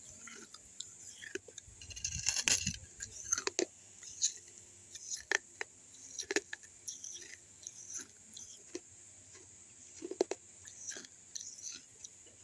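Pieces of an unglazed clay kulhad cup being bitten and chewed, a run of irregular crisp crunches and crackles, densest about two seconds in.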